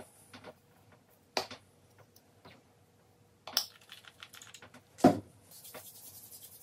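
Small clicks and taps from handling a plastic bottle of hair oil, with a sharp click about five seconds in as the loudest. Near the end, a fast soft patter as oiled palms rub together.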